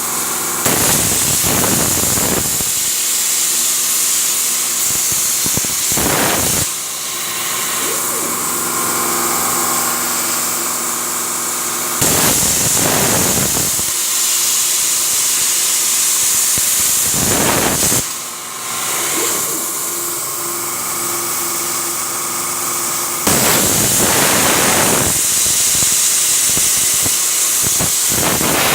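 CNC air-plasma torch (Trafimet A141 on a Svarog CUT 90 source) cutting 8 mm mild steel plate: a loud, continuous high hiss of the arc and compressed air. It swells louder and rougher for stretches several times, longest near the end, with a faint steady machine hum beneath.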